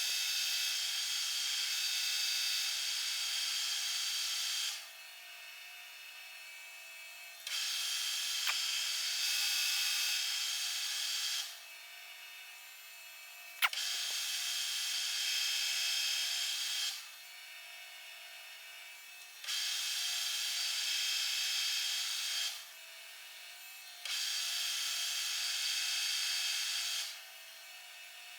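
Metal lathe working a steel round in repeated passes: five stretches of a few seconds each of hissing, scraping cutting noise, with short quieter gaps between them over a faint steady running hum, and a single sharp click about halfway through.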